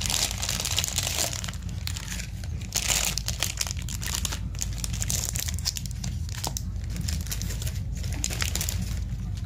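Plastic candy wrappers crinkling as wrapped chocolate bars and sweet packets are handled and set down, with louder crackling at the start and about three seconds in. A steady low hum runs underneath.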